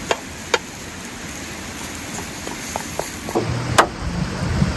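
Bacon sizzling in a pan over a campfire: a steady hiss with a couple of sharp pops early on. Towards the end come several light taps and one sharp crack as an egg is cracked, over a low rumble that builds up.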